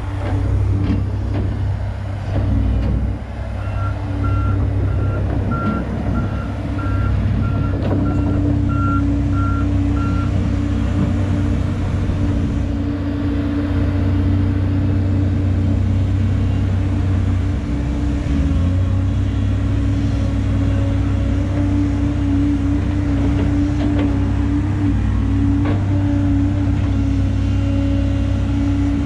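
Diesel engine of a Volvo EC210 crawler excavator running steadily under load as it digs, with a steady hydraulic-sounding tone over the engine drone. A reversing alarm beeps about nine times, starting about four seconds in and stopping about six seconds later.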